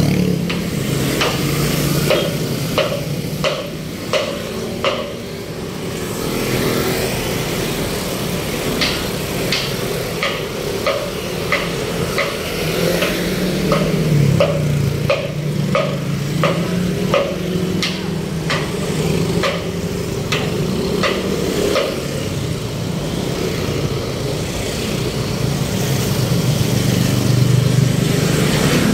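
Road traffic, with vehicle engines running and shifting in pitch, and a long series of sharp clicks, about two a second, running through it.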